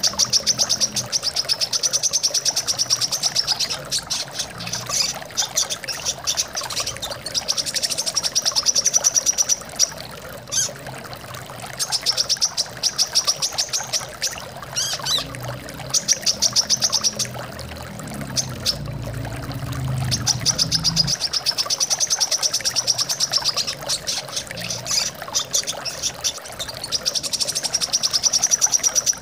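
Brown-throated sunbird (kolibri kelapa) singing in repeated fast, high trilling phrases of a second or two each, over steady running water.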